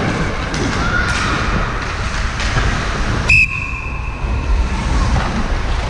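A referee's whistle blown once in a short, sharp blast about three seconds in, its shrill tone ringing on and fading over about a second. Underneath is the steady noise of the ice rink during play.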